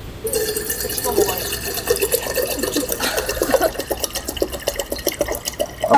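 Water poured from a plastic bottle into a stainless steel pot, a steady splashing fill that starts a moment in.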